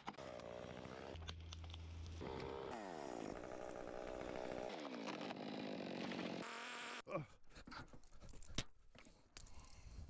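Faint engine running and revving up and down several times, then a few scattered clicks and knocks near the end.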